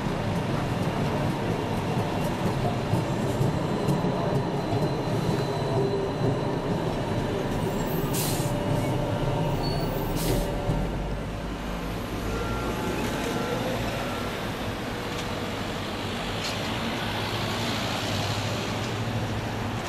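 Articulated electric trolleybus moving off close by over general street traffic noise, with two short hisses of air about eight and ten seconds in.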